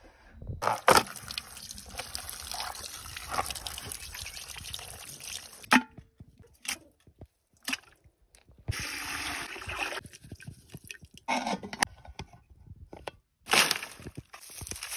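Wet sloshing and dripping of raw chicken pieces being handled and put into a metal pot, in several short stretches with gaps between them. Near the end, dry twigs and brush rustle and snap as kindling is handled.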